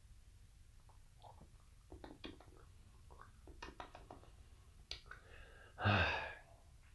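Faint lip smacks and tongue clicks of a man tasting whisky, scattered through the middle, then one short breathy vocal sound about six seconds in.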